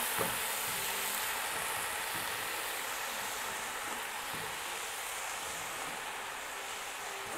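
Chopped fresh spinach sizzling as it lands in hot oil in a pot, a steady hiss that slowly dies down as the cold, wet leaves cool the oil, with a few faint knocks of the plastic colander.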